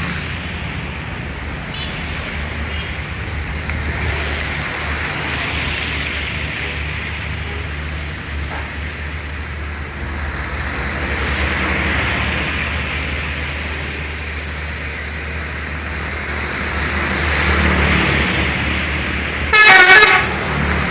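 Steady roadside traffic noise with vehicles passing, then near the end one short, loud blast of a bus's telolet horn, several wavering tones sounding together.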